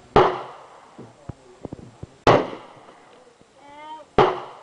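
Three shots from a heavy-calibre rifle, about two seconds apart, each a sharp crack with a short echoing tail, with small clicks between the shots.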